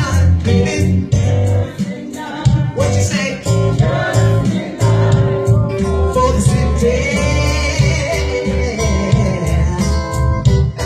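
A band playing a soul song: a singer holding long notes over a strong bass line, guitar and a steady drum beat.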